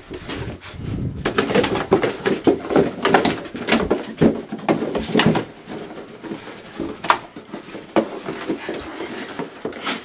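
A young coyote rummaging for hidden food, making irregular rustling and scrabbling noises.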